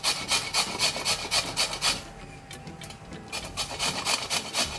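Peeled bottle gourd (lauki) being grated on a flat stainless-steel hand grater: quick, even rasping strokes about four or five a second. The strokes pause for a second or so in the middle, then start again.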